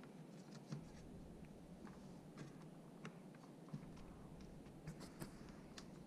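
Faint, irregular clicks and light scraping of the plastic housing and clips of a replacement LG dishwasher drain pump being handled and fitted into place.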